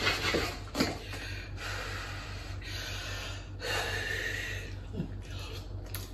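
A spoon clinks against a steel pot, then a person breathes out noisily several times over a spoonful of hot mashed potato as she tastes it.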